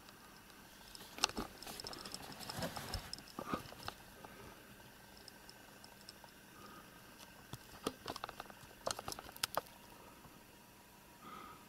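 A ginger cat licking and grooming a kitten: faint wet clicking and rasping, in a cluster about a second to four seconds in and another around eight to nine and a half seconds in.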